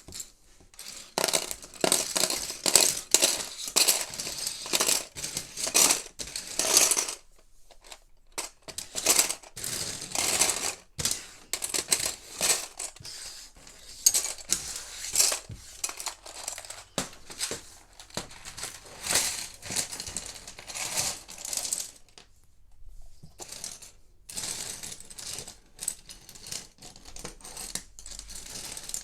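Loose Lego plastic pieces clattering and rattling as they are stirred and sifted by hand, in bursts of many small clicks with a brief pause about two-thirds of the way in.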